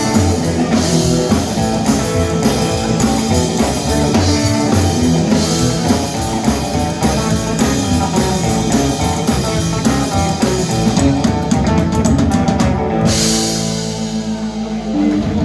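Live rock and roll band playing an instrumental passage with electric guitar and drum kit. About 13 seconds in the drumming stops and a chord is held.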